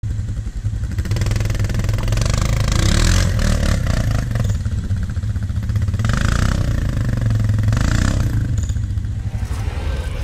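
ATV (quad) engines running: a steady, close low engine note, with a quad revving in several bursts as it works through a muddy pit.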